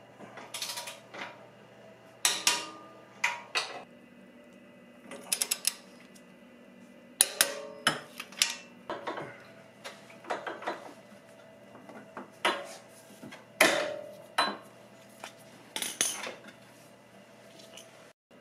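Hand tools clinking and clanking on metal bolts and the motorcycle frame during installation: an irregular series of sharp metallic knocks and rattles, some ringing briefly.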